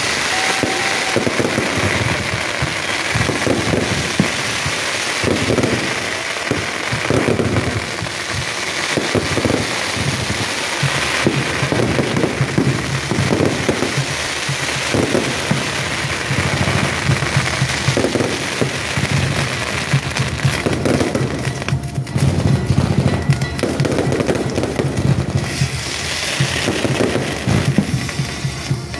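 A castillo fireworks tower burning: continuous hissing and crackling from its fountains and spinning wheels, with rockets and pops going off, while music plays.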